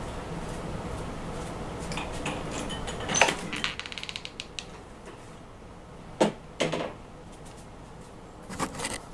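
A door being unlocked and opened: a quick rattling clatter of the latch about three seconds in, then two sharp knocks a little after six seconds and a few more clicks near the end.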